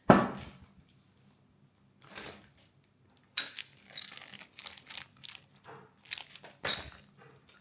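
A single sharp thump at the start, then about four seconds of intermittent crinkling and rustling of plastic and paper packaging being handled.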